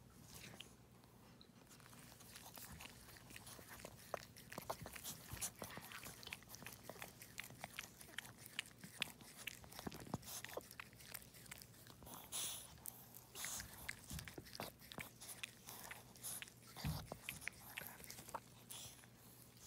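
Mother dog licking and chewing at the emerging amniotic sac while whelping: a faint, irregular run of small wet clicks and smacks that gets busier a few seconds in.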